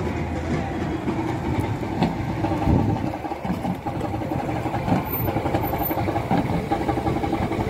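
A motor scooter's small engine running as it rides up and passes close by.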